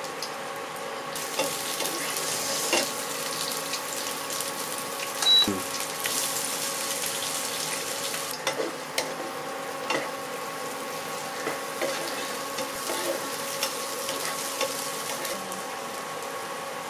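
Onion, green chilli and garlic pieces sizzling in oil in a nonstick frying pan as a wooden spatula stirs them, with occasional knocks of the spatula against the pan. Capsicum pieces go in partway through and keep sizzling.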